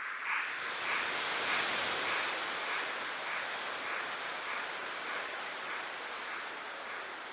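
Steady rushing of water, with a faint pulsing beat at about two a second that fades out over the first few seconds.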